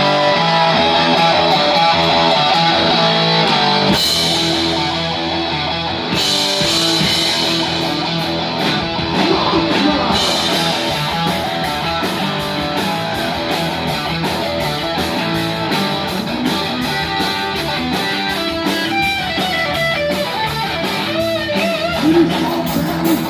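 Heavy metal band playing live: distorted electric guitar riffing, with cymbal crashes about four and six seconds in, then a fast, steady cymbal beat under the riff.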